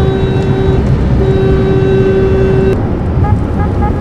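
Steady road and engine rumble inside a car driving at highway speed. Over it a loud, steady pitched tone is held, breaks off briefly about a second in, resumes and stops near three seconds, after which short higher notes repeat a few times.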